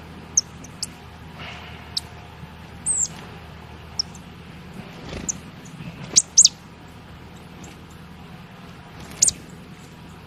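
Tits at a seed feeder giving short, high chirps and calls, about eight scattered through a few seconds, with a faint steady low hum underneath.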